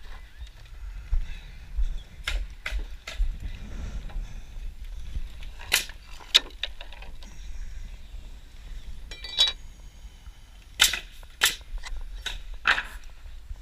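Irregular sharp knocks and clicks, about a dozen, some in quick pairs and one short rattle, over a low rumble.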